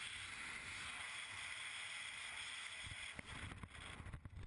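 Wind rushing over a skydiver's camera microphone in freefall: a steady hiss that, about three seconds in, gives way to lower, gusty buffeting.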